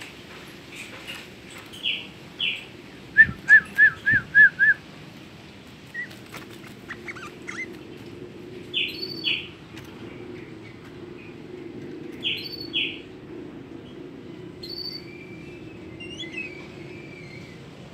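Pet songbird calling: short chirps in pairs repeating every few seconds, with a quick run of about six notes around three seconds in, the loudest part.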